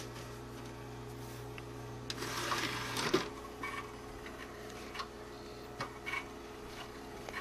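Power Macintosh 6500 desktop computer running: a steady whir and hum from its fan and drives, with scattered short clicks, a cluster of them about two to three seconds in.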